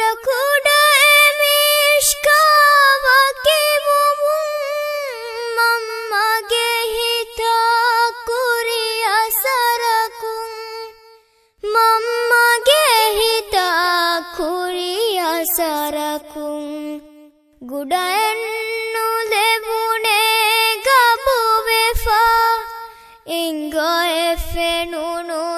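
A high voice singing a slow melody with no instruments, in long gliding phrases broken by a few short pauses.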